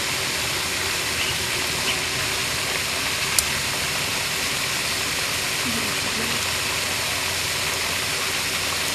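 Steady rushing hiss of a pond's spray fountain, with a faint click about three seconds in.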